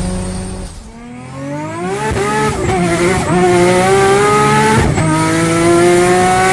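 Turbocharged car engine accelerating hard through the gears: its pitch climbs steadily in each gear and drops at gear changes about a second in and about five seconds in. A thin high whistle rises briefly after each shift.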